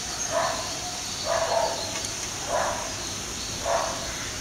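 Kachoris deep-frying in a wok of hot oil, a steady sizzle, under four short animal calls about a second apart that stand out above it.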